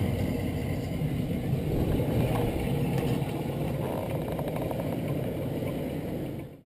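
P-51D Mustang's Packard Merlin V-12 engine running at taxi power as the fighter taxis away, its rumble fading as it moves off. The sound cuts off abruptly near the end.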